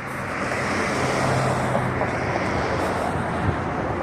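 A vehicle passing close by on the road: a rushing noise with a low engine hum that swells over the first second or so, is loudest around the middle, then eases off.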